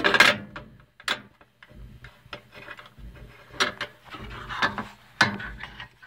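Irregular clicks, knocks and rubbing from small metal coffee-maker parts being handled close to the microphone, with the loudest knock right at the start.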